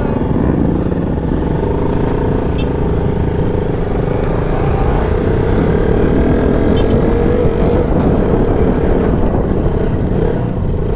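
KTM motorcycle engine running as the bike rides off, heard up close, with other motorcycles' engines around it; its note climbs slightly about halfway through as it gathers speed.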